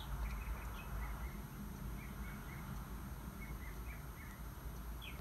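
Birds chirping in many short, scattered chirps over a faint, steady low rumble.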